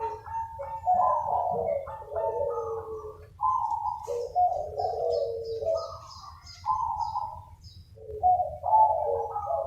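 Several zebra doves cooing over one another, their quick stuttering trilled coos overlapping almost without pause. Faint high chirps from another small bird come in the middle, over a steady low hum.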